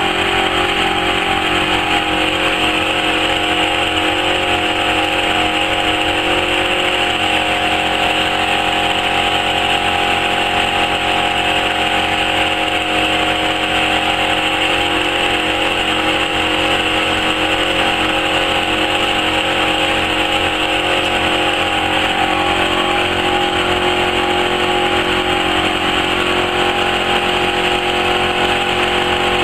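Laser fabric cutting machine running: a steady mechanical hum and whine from its drive motors and extraction, with no break, the pitch of some tones shifting slightly a few times.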